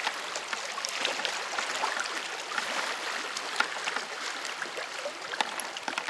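Water rushing and splashing along the hull of a moving boat: a steady wash of noise with many small splashes through it.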